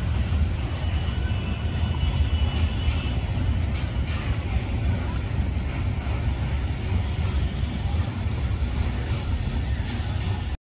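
Steady low rumbling outdoor noise.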